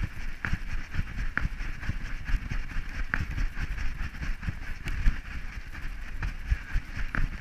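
A harness-mounted GoPro bumping and rattling as a Staffordshire terrier walks over rocky ground: irregular low thumps from the dog's steps, a few sharp clicks and a steady rushing hiss.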